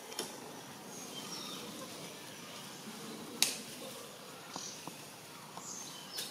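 Forest ambience: faint short high chirps over a steady background hiss, with one sharp click about three and a half seconds in and a few lighter clicks after it.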